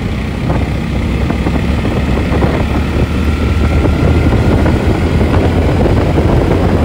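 Motorcycle riding along at speed: the engine and road noise run on steadily under a heavy, uneven rumble of wind on the microphone.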